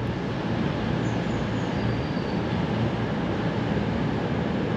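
Virgin Voyager diesel multiple unit running past on the line, a steady, even train noise with no change in level.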